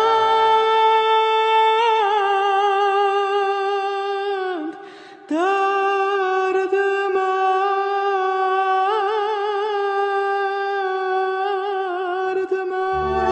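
Male singer holding a long, high sung note with wide vibrato, the closing flourish of the aria, nearly unaccompanied. He breaks off for a breath about five seconds in, then holds a second long note, and the orchestra comes back in at the very end.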